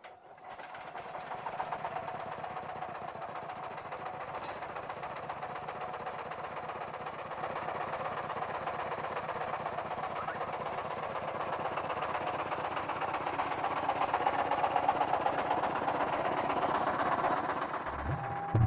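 A small engine running steadily, a fast even pulsing over a hiss that slowly grows louder.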